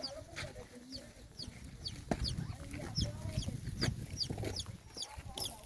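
A bird chirping over and over, short high falling notes about twice a second, over a low rumble.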